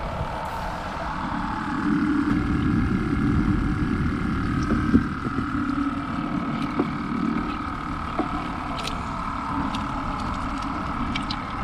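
Steady traffic noise from a highway bridge overhead, with small splashes and bubbling as a hand works in the water of an aerated live-bait bucket.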